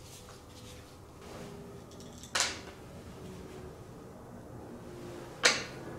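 Light handling sounds of a screwdriver working the coolant line off a carburetor, with two short sharp sounds about three seconds apart, the second louder.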